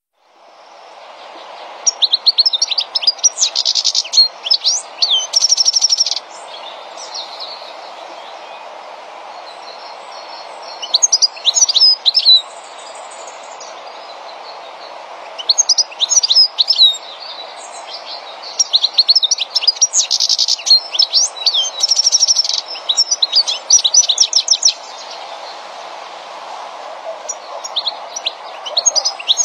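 European goldfinch twittering: bouts of quick, high chirps and tinkling trills a few seconds apart, over a steady low background hum.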